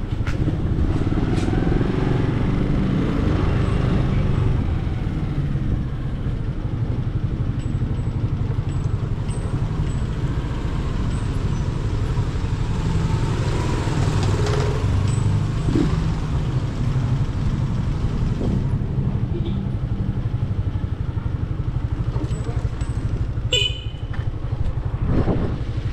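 A motor vehicle engine runs steadily on the move, a continuous low rumble with road and wind noise. A short high-pitched squeak cuts through near the end.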